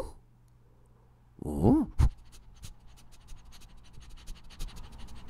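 A short whimpering vocal sound about a second and a half in, followed by a run of faint, quick clicks and scratches.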